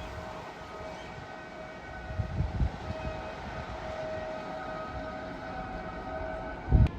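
A train running past with a steady whine, a few low thumps midway and a sharp, louder thump just before the end.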